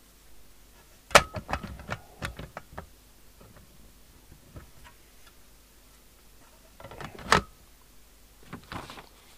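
Metal top cover of a CB radio being handled and fitted onto its case: a sharp knock about a second in, then a quick run of clicks and small rattles, another sharp knock about seven seconds in, and a brief scrape near the end.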